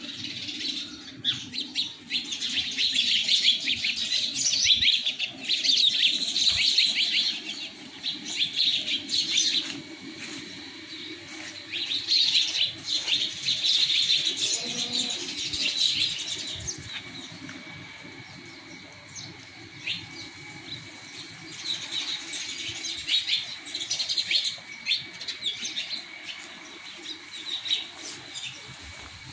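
A flock of small birds chirping in busy, overlapping bouts, quieter for a few seconds in between, over a faint low steady hum.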